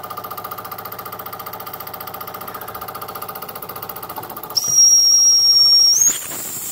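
Jensen Model 70 toy steam engine running fast with a rapid, even chuff. About four and a half seconds in, its steam whistle sounds a loud, high, steady note that jumps higher in pitch near the end, with a burst of hiss.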